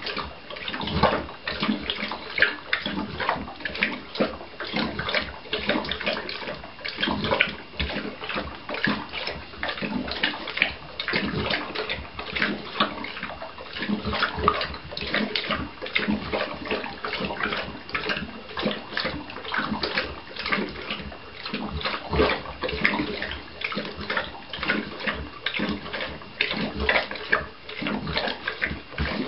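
Seven-month-old Neapolitan mastiff lapping water from a stainless steel bowl: a quick, continuous run of wet laps and splashes with no pause.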